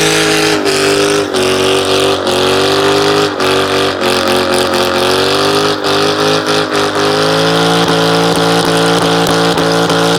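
Ford Mustang's engine held at high revs during a burnout, its pitch mostly steady with brief dips. A fast run of crackling clicks joins in about seven seconds in.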